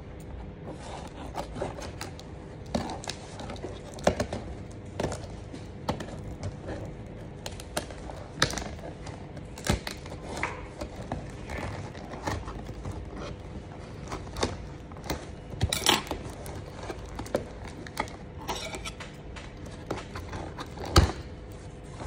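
Scissors cutting through a cardboard box and its packing tape: a string of irregular snips and crunches with cardboard rustling, the sharpest snap coming near the end, over a faint steady hum.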